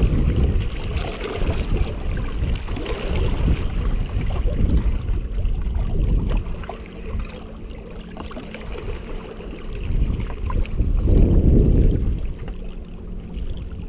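Wind buffeting an action-camera microphone on an open shoreline, in uneven gusts that ease off in the middle and rise again near the end. A faint steady low drone runs under it in the second half.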